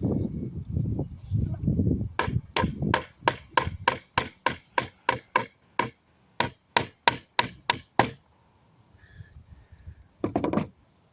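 Hammer striking nails in a wooden pallet plank to drive them out, in a steady run of sharp blows at about three a second for about six seconds. After a pause, a few more quick blows near the end. Before the blows, a low scraping rumble of wood being handled.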